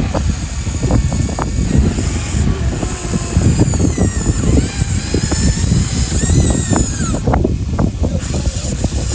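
Radio-controlled model excavator working, with a high electric-motor whine that rises and falls in the middle over a constant rumble and clatter of small knocks and clicks.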